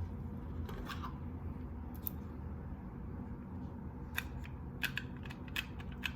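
Hard plastic and metal RC car drivetrain parts clicking and tapping as a part is pushed and turned to seat it in the gearbox. The clicks come singly at first, then in a quick cluster in the last two seconds.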